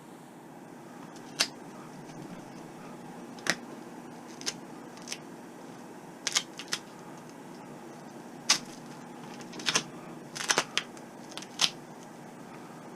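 Duct tape being pulled, stuck and pressed down around a LiPo battery pack by gloved hands: about a dozen short, sharp crackles and snaps at irregular intervals, over a faint steady hum.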